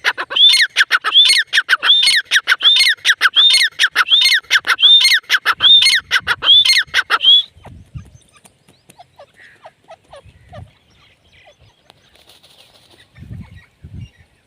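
Grey francolin calling: a loud, fast series of sharp repeated notes, each falling in pitch, about two or three a second. The call stops about seven seconds in. A few faint low thumps follow near the end.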